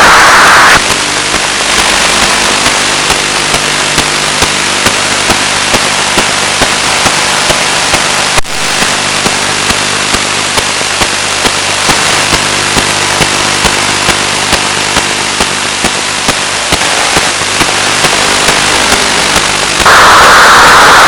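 GSM mobile-phone interference picked up by an FPV ground station: a buzz of several steady tones with a click about twice a second, over radio-receiver hiss. The buzz cuts in about a second in and stops about a second before the end, with one sharp click about eight seconds in.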